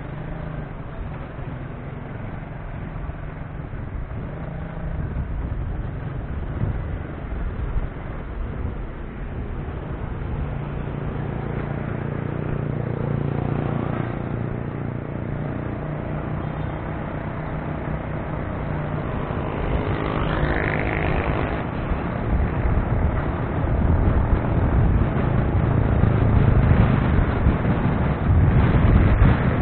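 Road traffic heard while riding: motorcycle and car engines passing close by, among them a motorcycle sidecar tricycle, over a steady rumble of tyres and wind on the microphone. A short rising whine comes about twenty seconds in, and the rumble grows louder near the end.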